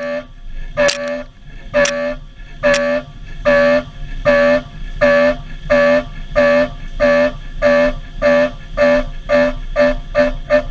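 Milling cutter on a CNC machine taking repeated high-speed passes in 4130 steel. Each engagement gives a short pitched whine, about one a second at first, with a sharp click as the first few cuts begin, then quickening to about two a second.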